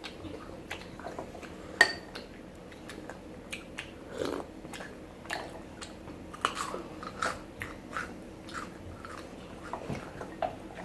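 Close-up chewing and crunching of Maltesers, malted-milk chocolate balls, as a string of small irregular crisp crunches and clicks, with one sharper click about two seconds in.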